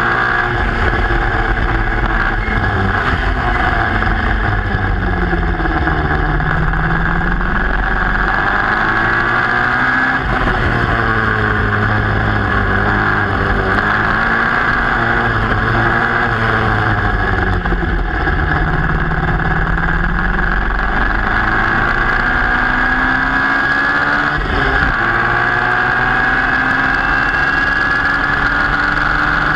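A Formula Junior racing car's engine, heard from the cockpit at race pace. Its pitch climbs under acceleration and falls away as the car slows for corners, over a constant rush of wind and road noise.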